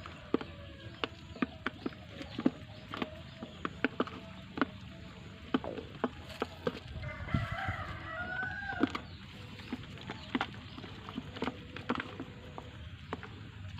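Chickens pecking at feed: many sharp, irregular clicks. A drawn-out chicken call, bending in pitch, comes about seven seconds in and lasts a couple of seconds.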